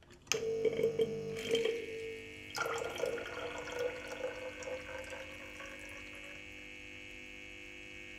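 Nitto Kohki BPH-414G piezoelectric pump, driven by a bimorph vibrator, starting up and running with a steady buzzing tone. Water gurgles through its tube and splashes into a cylinder, then fades after about six seconds, leaving the steady buzz.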